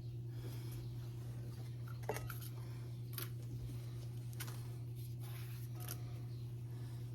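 Knife slicing bananas on a cutting board: a few scattered soft taps and clicks, over a steady low hum.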